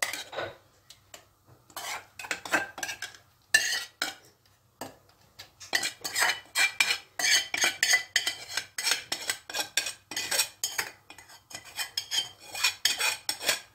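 Metal spoon scraping and clinking against a metal pot and clay casserole dishes while thick tomato sauce is spooned over pasta. The strokes come in quick, irregular runs, sparse at first and busiest from about halfway through.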